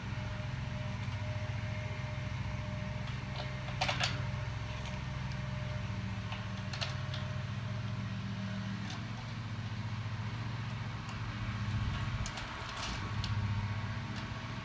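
Small clicks and taps of bolts, washers and nuts being fitted by hand on a plastic bumper bushing around a metal dock post: a sharp one about four seconds in, others near seven seconds and near the end. A steady low mechanical hum runs underneath.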